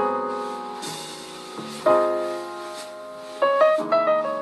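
Instrumental background music: chords struck about every two seconds and left to fade, with a quick run of several notes about three and a half seconds in.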